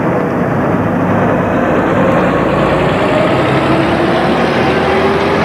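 Bus engine and road noise heard from inside the cabin of a moving bus: a steady, loud rumble with a faint whine that slowly rises in pitch.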